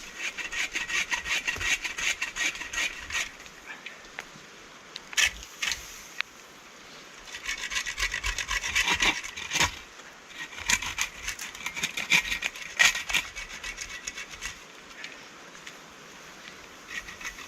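Hand saw cutting through spruce to clear a trail, in three runs of quick back-and-forth strokes with short pauses between, and a few single knocks.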